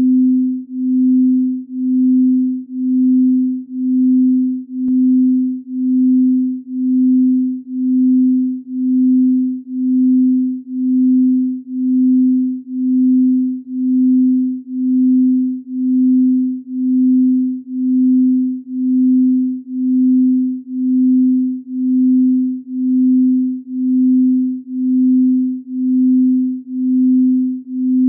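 A single low electronic pure tone pulsing evenly, about once a second: a chakra-balancing tone, pulsed in the manner of an isochronic tone.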